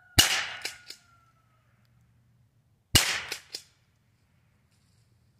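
Two shots from a Henry H003T pump-action .22 Long Rifle rifle, a little under three seconds apart. Each is a sharp crack followed within a second by two quieter clacks.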